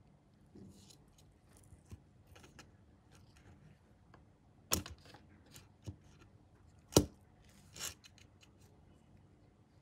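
Light ticks and clicks of a plastic motorcycle scale model on a cutting mat, with two sharper clacks about two seconds apart, the second the loudest, and a soft rustle just after.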